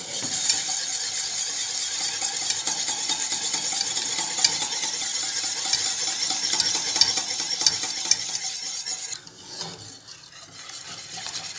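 Wire whisk beating a thick béchamel sauce in a stainless steel saucepan, a rapid, steady scraping and clicking of the wires against the pan, working out lumps as the sauce thickens. It goes quieter for a couple of seconds near the end.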